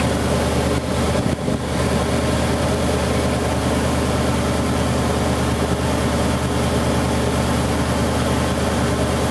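1979 Ford Bronco's V8 idling steadily with the air conditioning switched on and the blower fan running.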